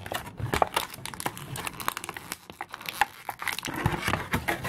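Plastic toy packaging crinkling and clicking in quick irregular snaps as small accessories are worked out of it by hand.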